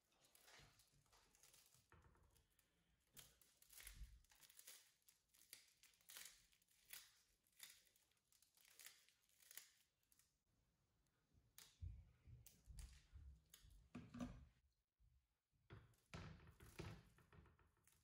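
Faint crackling and rustling of jaggery-coated puffed rice being squeezed by hand into balls, in irregular handfuls, with a few soft low thumps.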